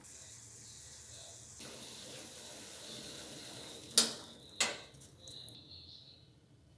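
Water running with a steady hiss for about five seconds, with two sharp clinks of kitchenware about half a second apart a little past the middle, the first the louder.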